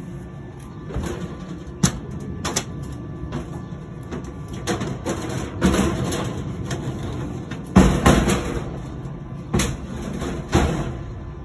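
Irregular metal knocks and thumps from men climbing and working on the steel gondola of an amusement-ride boat, about seven separate bangs, the loudest near the end.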